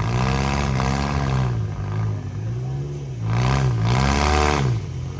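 Demolition derby minivan engines revving hard and easing off, the engine note rising and falling in about three long swells as the vans drive at each other.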